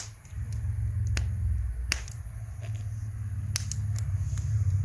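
Two people drinking from cans: a sharp click at the start, then a few fainter clicks from gulping. Under them runs a low engine rumble from a vehicle, growing louder toward the end as it approaches.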